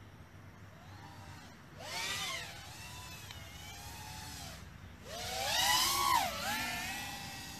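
High-pitched whine of an FPV racing quadcopter's brushless motors and propellers, its pitch gliding up and down as the throttle changes. A short swell comes about two seconds in, and the loudest swell, rising then dipping in pitch, comes around five to six and a half seconds.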